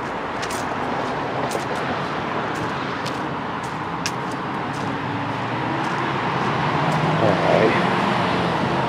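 Steady roar of road traffic, with footsteps crunching on a dirt trail about twice a second.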